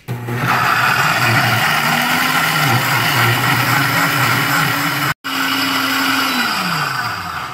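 Instant Ace Nova blender running at full speed, blending walnuts with coconut milk and water into a thick paste. The sound breaks off for a moment about five seconds in, then the motor winds down near the end, its pitch falling as the blend cycle stops.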